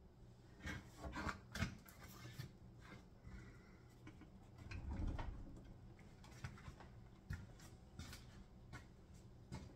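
Faint handling noises of objects being moved about on a tabletop: scattered light clicks, knocks and rustles, with a louder dull thump about five seconds in.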